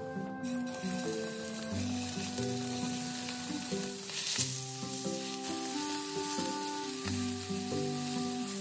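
Pork-wrapped meat rolls sizzling in hot oil in a nonstick frying pan, a steady frying hiss that sets in just after the start and flares louder about four seconds in.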